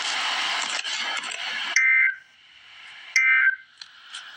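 Emergency Alert System end-of-message data tones. About a second and a half of loud hissing noise is followed by two short buzzy two-tone data bursts, about a second and a half apart, signalling the end of the alert.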